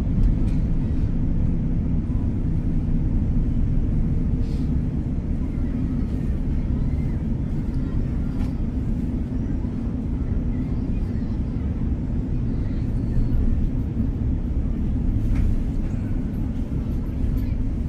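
Steady low rumble of a West Midlands Railway train heard from inside the carriage as it runs toward a station, with a few faint clicks.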